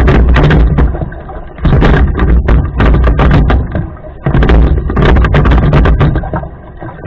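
Rowing boat under way: a rhythmic surge of knocks and rushing with each stroke, about one every two and a half seconds, easing off between strokes.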